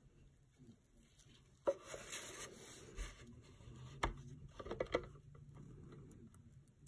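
Handling noise from a urethane resin terrarium decoration and a clear acrylic enclosure: a sharp click, then a second or so of plastic scraping. A knock follows, then a quick cluster of clicks as the resin piece meets the plastic box.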